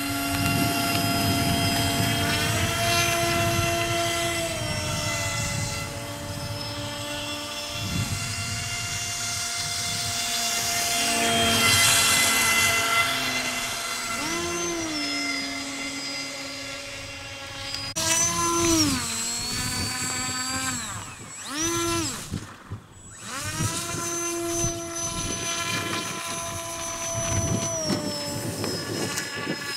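Electric motor and propeller of a radio-controlled model running with a steady high whine that steps up and down in pitch as the throttle changes, with a run of quick rising and falling swoops about two-thirds of the way through.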